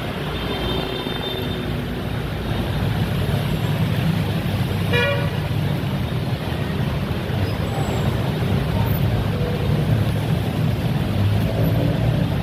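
Congested traffic of cars and motorcycles idling and creeping on a rain-wet road under a flyover, a steady engine rumble with the hiss of heavy rain. A car horn gives one short toot about five seconds in.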